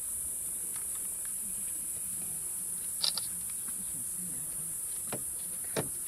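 Steady high-pitched insect chorus, with a few sharp clicks or snaps about three seconds in and twice near the end.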